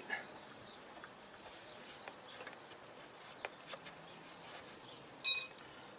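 Faint small clicks of hand tools being handled at a motorcycle brake caliper, then, about five seconds in, a single short, bright metallic clink of a steel tool striking metal.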